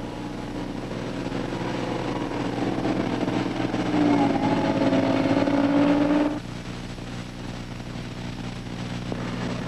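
Motor grader's diesel engine running under load, growing louder, with a stronger engine note from about four seconds in that drops off suddenly after six seconds to a steadier, lower running sound.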